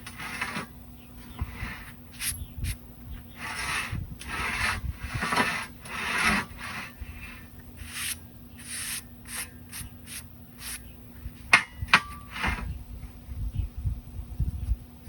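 Repeated hand scraping strokes on metal, each about half a second long with short gaps between them, followed by a few sharp metallic clicks around twelve seconds in.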